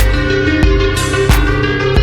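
Rock music with drum kit, bass and electric guitar at a steady beat of about one and a half beats a second.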